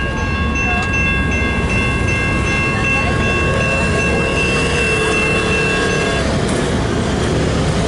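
CN local freight train rumbling past at close range, with a steady high-pitched ringing tone over it that cuts off suddenly about six seconds in.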